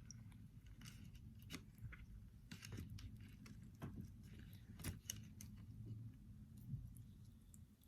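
Faint, scattered clicks and taps of a plastic kit spoon working a stiff lump of homemade slime in a cup, over a low background hum.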